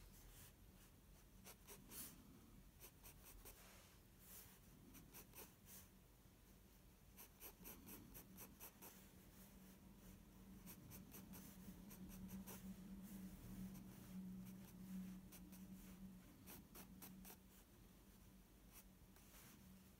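Faint scratching of a Staedtler Mars Lumograph graphite pencil on sketchbook paper, in quick short strokes coming in irregular flurries. A faint low hum runs underneath and is a little stronger in the middle stretch.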